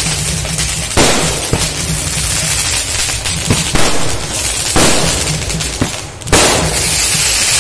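Multi-shot aerial firework cake firing: sharp bangs about every second, each followed by the crackling of the bursting stars.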